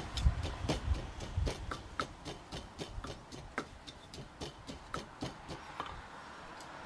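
Wooden pestle pounding garlic and fresh Thai chilies in a clay som tum mortar: short hollow knocks, about three or four a second, thinning out near the end.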